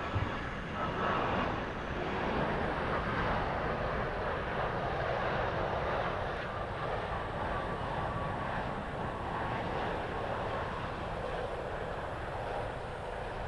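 Jet engines of an All Nippon Airways Boeing 787-9, Rolls-Royce Trent 1000s, running at approach power as the airliner passes low on final approach just before touchdown. The sound is a steady rush, with a faint whine in the first couple of seconds.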